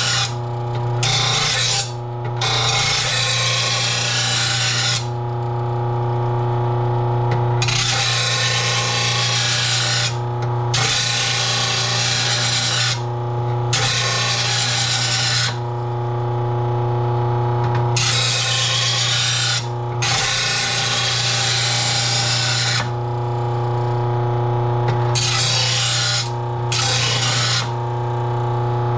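Electric grinder running steadily while a steel lawn mower blade is pressed against it in about ten short passes. Each pass adds a harsh grinding hiss over the motor's hum as the blade edge is sharpened.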